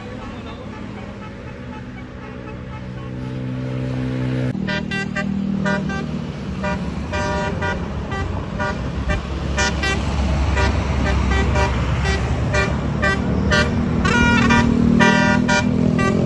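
Tour bus's 'basuri' musical air horn (the 'telolet' horn): a held tone for about the first four seconds that cuts off sharply, then a quick run of short horn notes changing pitch, over the bus's engine rumble, which grows louder as the bus comes close.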